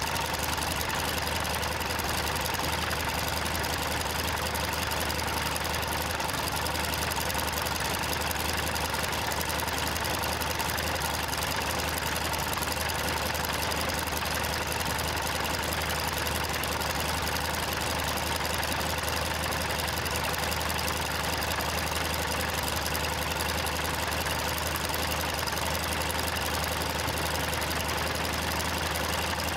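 Comper Swift's Pobjoy Niagara seven-cylinder radial engine and propeller running steadily on a ground run, at an even, unchanging pitch and level.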